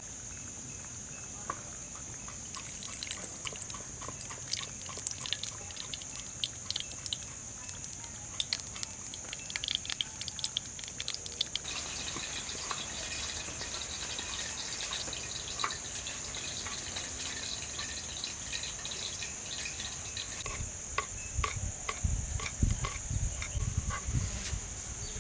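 Insects droning with one steady high note, over a run of quick irregular clicks and ticks from about two seconds in.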